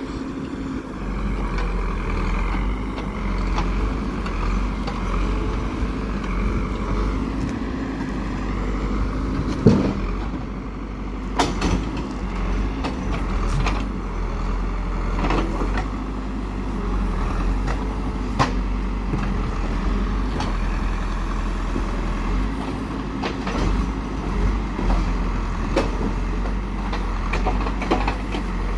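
Diesel engine of a heavy construction machine running steadily, with a higher tone that dips in pitch about eight seconds in. Scattered sharp knocks and clanks come from about ten seconds on, the loudest one near the start of them.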